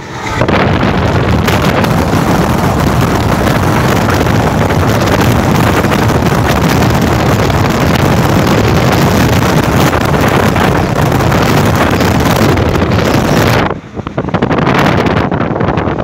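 Loud wind buffeting the microphone at the open door of a moving passenger train, over the train's running noise. It drops out sharply for a moment near the end and then comes back.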